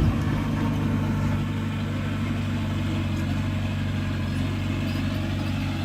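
Heavy diesel engine of earthmoving machinery running steadily at a low, even speed.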